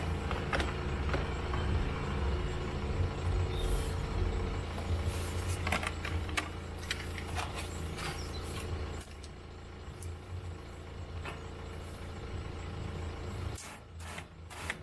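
A steady low motor hum, dropping in level about nine seconds in and again near the end, with scattered clicks and knocks of plastic parts being handled.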